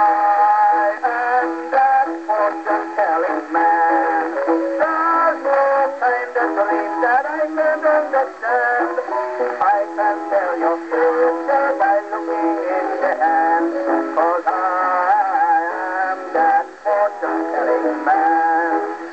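A 1901 Victor acoustic disc playing back on a Victor VV-VI Victrola wind-up gramophone with a fibre needle: a sung song with accompaniment, the song track of a three-track fortune-telling puzzle record. The sound is thin and narrow, with no bass and little treble, over a faint surface hiss.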